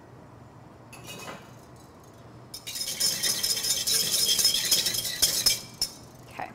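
Wire whisk rattling rapidly against the inside of a stainless steel saucepan for about three seconds, stirring melting butter, then stopping suddenly.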